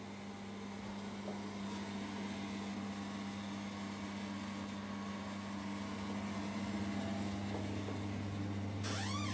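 Steady low electrical hum, growing louder partway through. Near the end a door hinge gives a short rising creak as the door is swung open.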